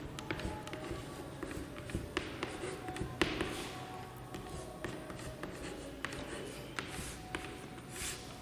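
Chalk writing on a chalkboard: a run of short taps and scratchy strokes as a word is written by hand.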